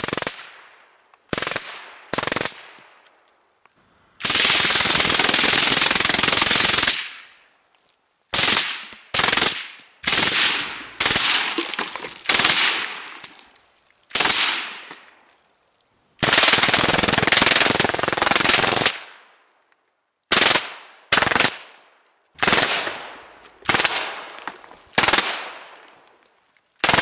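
Suppressed full-auto M16-type rifle, a Lage MAX-11/15 upper with a Tactical Innovations TAC16 suppressor, firing 5.56/.223 in bursts. There are two long bursts of about three seconds and around fourteen short bursts of a few rounds, each dying away over about a second.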